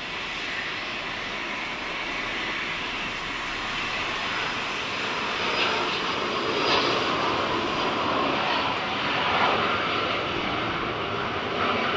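Jet aircraft engine noise, a steady rushing sound that grows gradually louder.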